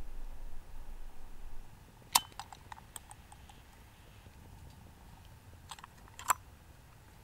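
Clicks and small taps from a candle lantern being handled: one sharp click about two seconds in, a quick run of lighter clicks after it, then a few more ending in another sharp click near the end.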